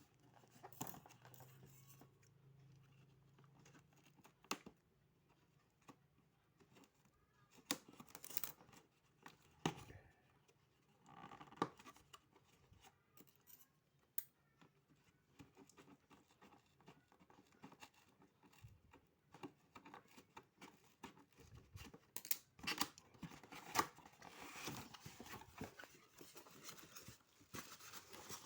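Air fryer packaging being opened and handled: faint, scattered clicks and rustles at irregular intervals, busier in the last few seconds.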